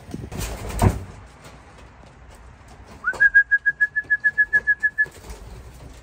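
A high trilled whistle, rising quickly at the start and then pulsing evenly at one pitch, about seven pulses a second for about two seconds, starting about halfway through. Before it, in the first second, a short burst of rustling.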